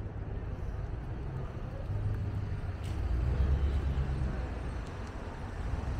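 City street traffic: car engines running and passing on the avenue, a low rumble that grows louder about halfway through.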